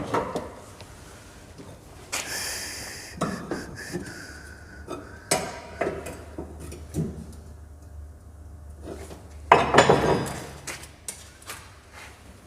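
Metal tools and parts clinking and clattering in a car-repair workshop, with a steady low hum through the middle and a louder flurry of clanks about two-thirds of the way through.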